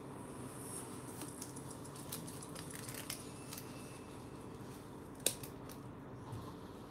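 Flat plastic weaving strips scraping and ticking as a screwdriver tip tucks their ends into the mat, then scissors trimming the strips near the end. A single sharp click about five seconds in is the loudest sound.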